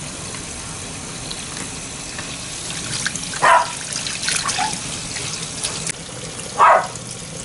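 Kitchen tap running steadily into a stainless steel bowl of nobiru wild onions, with splashing from about halfway as hands rub and rinse the bulbs. Two short, loud sounds stand out, one about halfway and one near the end.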